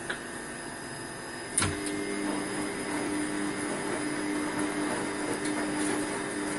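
Steady hum of a small motor or electric appliance, growing louder after a click about a second and a half in.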